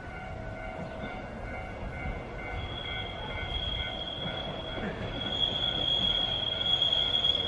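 Steel wheels of a Hankai Tramway Mo 601-class tram squealing as it rounds a sharp curve, a high steady squeal that grows louder as the tram approaches, over a low rumble of the running car.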